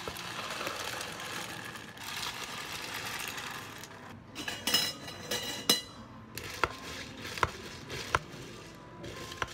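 Liquid poured from a pitcher into an iced drink in a plastic cup, then ice tipped in from a scoop with a loud clatter. A long bar spoon then clinks sharply against the cup three times as the drink is stirred.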